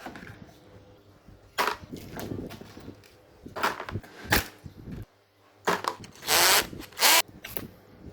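Hands-on work on a small fan's parts: irregular clicks, knocks and clatter, with a few short noisy bursts of tool sound, the loudest a little over six seconds in.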